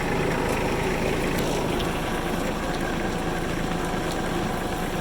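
An engine running steadily at a constant speed, with a hiss over it.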